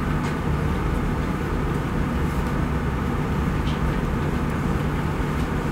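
Steady low rumble and hum of room noise, with no distinct events.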